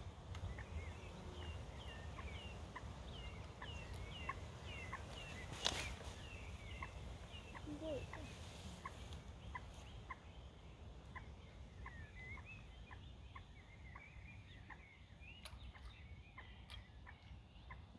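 A bird calling faintly with a long series of short, evenly repeated chirps, about two a second, over a steady low rumble. A single sharp click about six seconds in.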